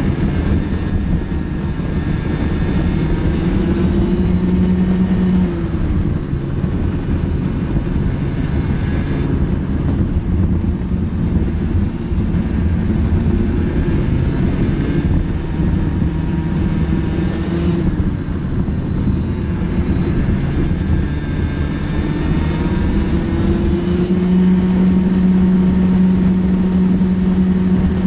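Racing kart engine heard on board at race pace, its pitch climbing on the straights and dropping sharply several times as the driver lifts for corners, then holding a steady high note near the end.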